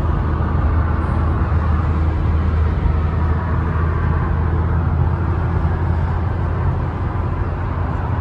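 Steady low rumble of road and engine noise inside a car's cabin while it drives at highway speed.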